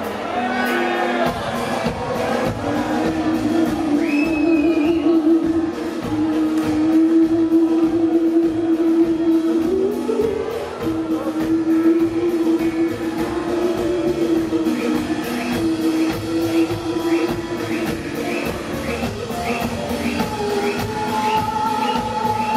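Live brass band playing in a hall: drums keep a steady beat under one long held low note, with a run of short, evenly spaced high notes near the end.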